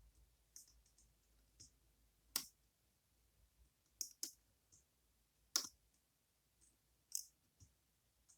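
Small, sharp metallic clicks of a lock pick and tension wrench working the spool pins inside a Goal Z pin tumbler lock: a handful of louder clicks at irregular intervals among fainter ticks.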